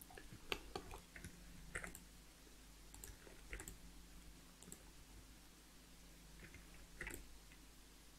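Faint, irregular clicks of a computer mouse and keyboard being worked, about a dozen spread unevenly, over a low steady hum.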